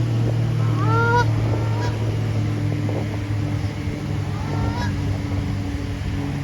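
Canada goose honking, two calls about four seconds apart, over a steady low hum.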